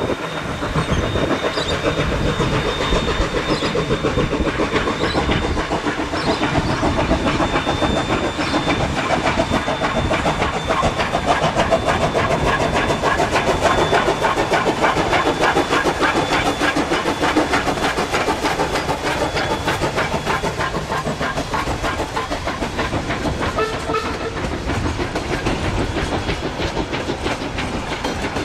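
Queensland Railways C17 class 4-8-0 steam locomotive No. 974 passing while working steam, its exhaust beating in a rapid, even rhythm that is loudest about halfway through. Its carriages then follow, clattering over the rail joints. A thin, steady high tone runs through the first two-thirds.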